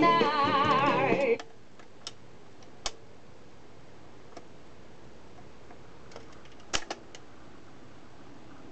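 Music from a record playing on a vintage Alba record player stops abruptly about a second in. Then there are a few sharp mechanical clicks from the turntable deck as the tonearm goes back to its rest, the loudest near the end, over a faint steady hum.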